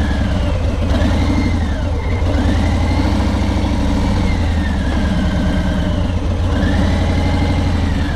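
Harley-Davidson Milwaukee-Eight 107 V-twin with a Two Brothers Racing aftermarket exhaust, running steadily at idle and low speed with a fast, even pulse as the motorcycle creeps forward at walking pace. A faint higher tone rises and falls a few times over it.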